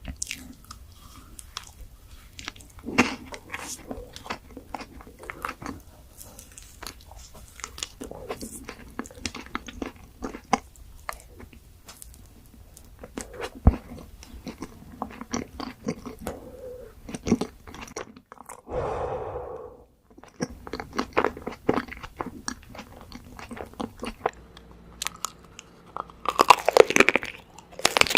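Chewing and crunching of chocolate candy ice cream bars, with many short crisp crunches from bites and louder bites near the end.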